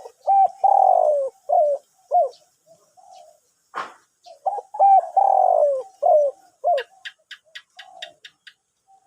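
Spotted dove cooing, a deep-voiced 'two-kook' song: two phrases a few seconds apart, each a series of short hooked coos around a long falling coo. A sharp click about four seconds in and a quick run of about ten ticks near the end.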